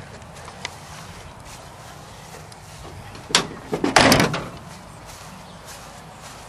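A pickup truck's door being opened by its handle: a sharp latch click a little past three seconds in, then a louder clunk about half a second later as the door comes open.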